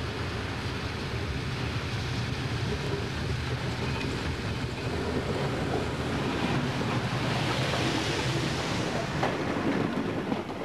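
Steam locomotive rolling past at close range: a steady rumble of wheels and running gear with a hiss that rises and grows louder in the second half as the engine goes by.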